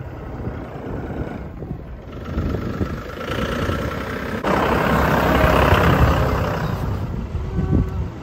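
Farm tractor's diesel engine running steadily under a low rumble. A louder rushing noise rises over it for a couple of seconds past the middle.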